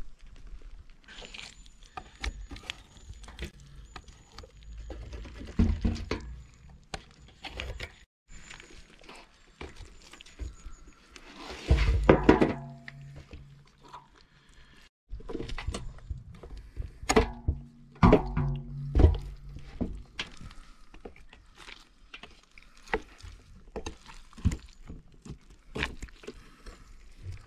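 A run of scattered knocks and thunks with a low steady hum under them. A loud pitched call rises out of it about halfway, and there are shorter pitched sounds a little later.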